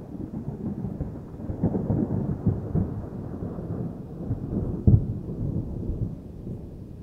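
Low, deep rumble that swells and fades several times, with a sharp low boom about five seconds in, then dies down toward the end.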